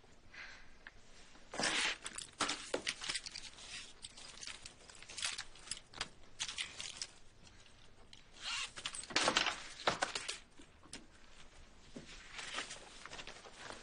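A paper bag rustling and crinkling in irregular bursts as it is handled, loudest about two seconds in and again near the ten-second mark.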